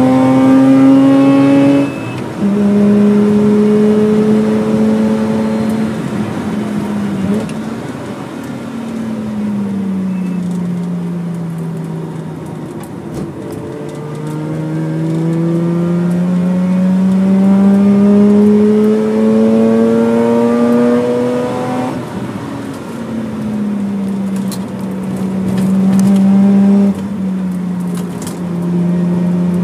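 Mazda RX-8's two-rotor rotary engine heard from inside the cabin under hard acceleration near 7,500 rpm. Its note drops suddenly about two seconds in, sinks steadily as the car slows for a corner, climbs again under throttle until about two-thirds of the way through, and then falls in two quick steps.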